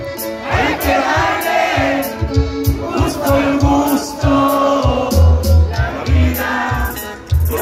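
Live norteño music: a button accordion over electric bass and drums, with singing and crowd noise.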